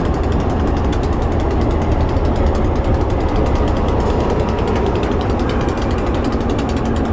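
Diesel locomotive engine running close by with a steady low rumble and a rapid, even clatter as the helper engine creeps back toward the coach to be coupled.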